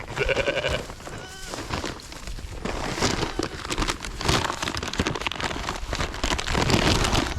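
A short bleat from the goats and sheep being fed, right at the start, and a weaker one about a second and a half in. Then a busy pattering, rustling noise from the feeding animals.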